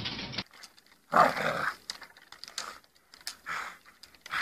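A dog giving short, rough barks or huffs, the loudest about a second in and two weaker ones later, with faint clicks between.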